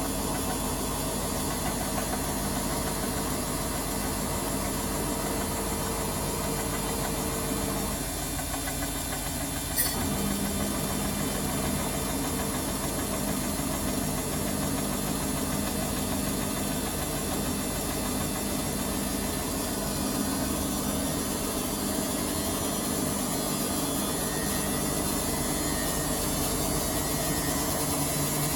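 Washing machine motor running with a steady hum and crackling noises; the hum drops away about eight seconds in, a sharp click comes just before ten seconds, and the hum picks up again. The crackle is typical of worn motor brushes or a failing motor.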